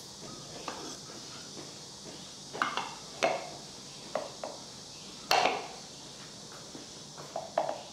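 Hard objects knocked and set down while working wood: about eight sharp, irregular knocks and clinks, the loudest about five seconds in, over a steady faint hiss.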